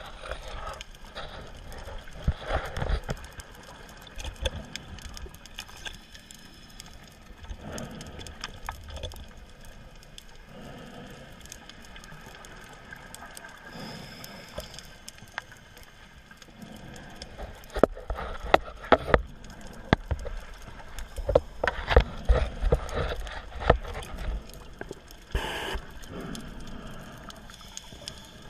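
Underwater sound of a diver breathing on an ISC Megalodon closed-circuit rebreather while swimming through a wreck: low gurgling water noise throughout, with scattered sharp clicks and knocks that come thicker in the second half.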